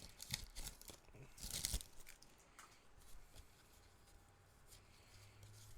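A foil booster pack wrapper crinkling and being torn open, with a louder rip about a second and a half in, then only a faint hum.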